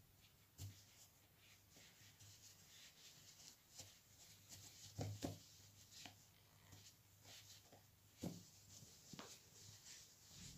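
Near silence with faint rubbing and small ticks of a crochet hook and velvet yarn being handled as a yarn tail is worked into the crocheted edge to fasten off. A few slightly louder ticks come about five seconds in and again near eight seconds.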